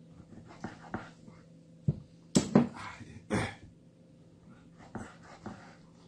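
Light knocks of a kitchen knife on a wooden cutting board as raw chicken breast is sliced, with a man's two loud breathy huffs around the middle.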